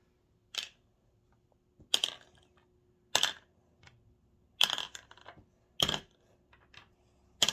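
Six sharp, hard taps, one about every second and a quarter: a hard tool or object knocking on a hard surface.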